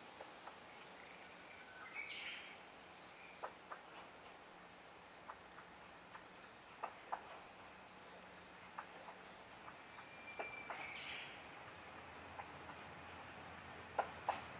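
Woodland birds calling, over a thin, high chirping and a scattering of sharp clicks, the loudest two near the end. Near the end, the low rumble of an approaching Kominato Railway KiHa 200 diesel railcar begins to rise faintly.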